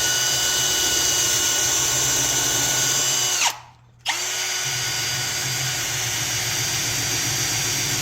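Electric drill running steadily with a brush in its chuck, cleaning the metal of an old hand brace. It winds down and stops about three and a half seconds in, then starts up again half a second later and runs on.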